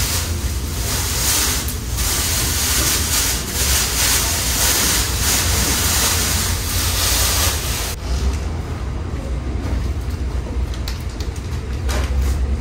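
A large plastic bag of balloons rustling and crinkling as it is carried and handled, over a steady low rumble. The crackly rustle drops off abruptly about eight seconds in, leaving the rumble and fainter rustles.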